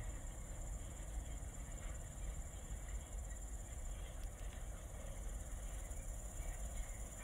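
Crickets chirping steadily in a high, even tone over a low, steady rumble.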